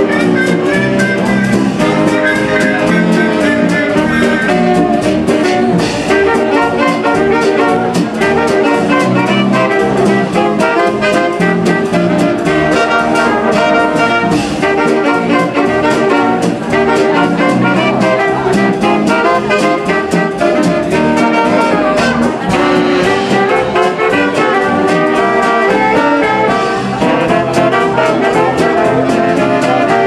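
Live 1930s-style dance orchestra playing an instrumental passage of a dance-band arrangement: trumpets, trombone and saxophones over double bass, with a steady beat.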